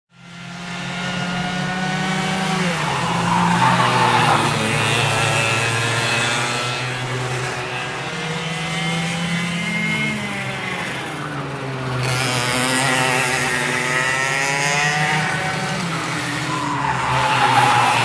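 Go-kart engines on a track, several running at once, their pitch rising and falling again and again as the karts speed up and slow down. The sound fades in over the first second.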